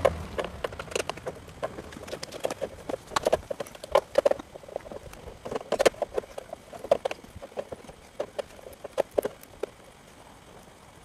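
Steel band clamp on a rubber pipe coupling being tightened with a hand tool: irregular clicks and taps, thinning out near the end.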